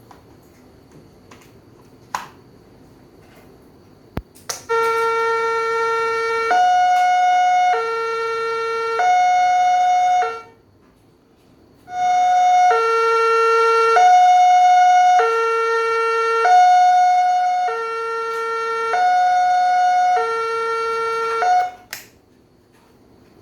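Railway level-crossing gate alarm sounding its two-tone warning: a low note and a higher note alternating about once a second. It plays for about six seconds, stops briefly, then resumes for about ten seconds; a couple of clicks come just before it starts.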